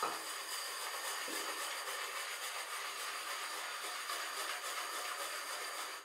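Synthetic 24mm shaving brush whipping soap lather around a shaving bowl: a steady wet swishing hiss that stops near the end.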